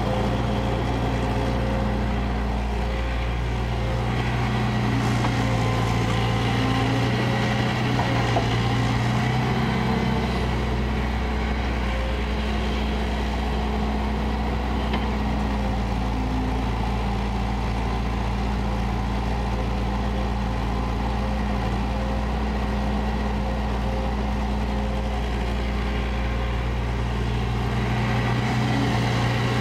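Diesel engine of a Kobelco crawler excavator running steadily while it digs and swings a bucket of soil, its note shifting slightly in pitch as the hydraulics take load.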